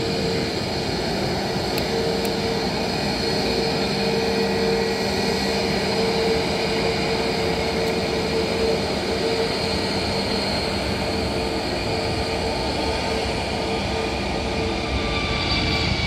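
Jet engines of a taxiing Airbus A320neo (CFM LEAP-1A turbofans) running at low thrust: a steady rumble with a whine on top. Near the end a second, rising whine joins in.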